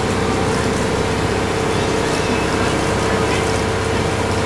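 Amusement park ride train's engine running steadily as the train rolls along, a constant low drone with a steady hum over the running noise.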